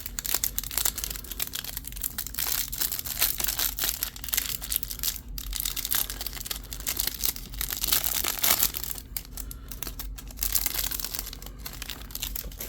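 Plastic wrapper of a stack of trading cards being crinkled and torn open, a dense crackling that goes on without a break. Under it is the steady low hum of a clothes dryer running.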